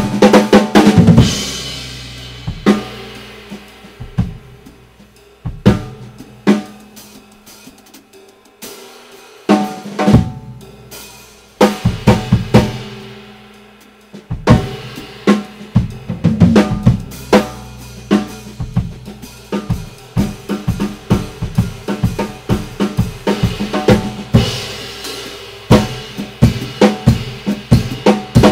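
Acoustic drum kit played solo: drums and cymbals. It opens with a dense flurry and cymbal crashes, thins to scattered hits with near-pauses around eight to nine seconds in, and from about halfway builds into a dense, fast, continuous pattern.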